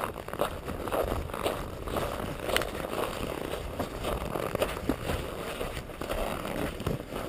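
Footsteps crunching through packed snow, about two steps a second, from a person and a dog walking together.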